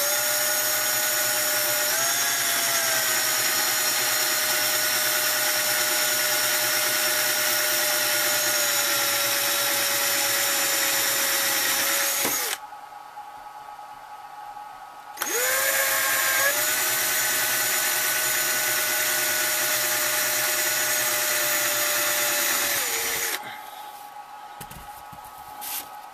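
Cordless drill running steadily as it drills through a clear plastic canopy part, in two runs: a long one of about twelve seconds, a short pause, then a second run of about eight seconds. Its motor whine holds a steady pitch, easing slightly lower toward the end of each run.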